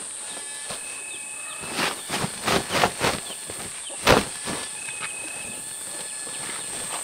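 A woven plastic sack being shaken out: a few quick rustling swishes, then one loud sharp snap of the sack about four seconds in. A steady high insect drone and a bird's short whistles carry on underneath.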